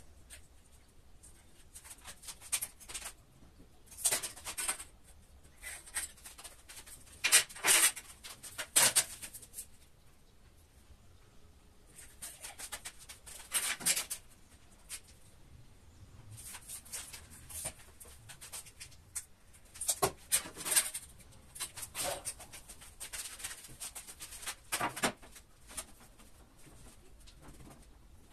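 Short scratchy scraping strokes at irregular intervals, some sharp and loud: a black marking line being drawn along a ruler on a large ceramic wall tile to mark the cut-out around a window.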